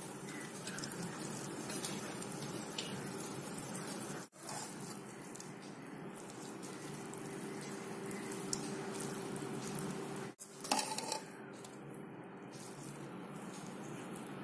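Egg fried rice sizzling in ghee in a pan as cooked rice is stirred into frying egg and vegetables with a spatula: a steady hiss. It cuts out briefly twice, with a short burst of spatula scraping and clinking about eleven seconds in.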